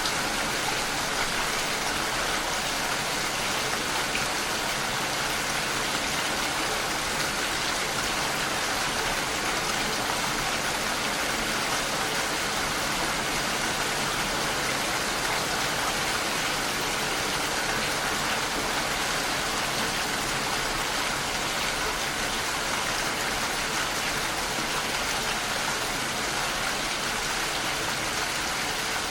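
Steady rainfall: an even hiss of rain falling, with no change in intensity.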